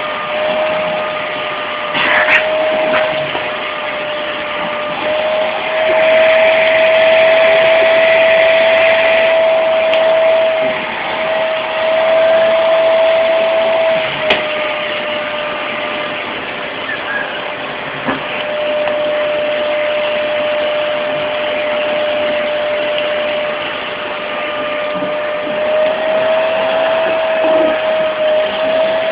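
Vacuum cleaner running continuously, a steady rushing noise with a held whine whose pitch shifts slightly up and down as the airflow changes, and a louder hiss for a few seconds early on.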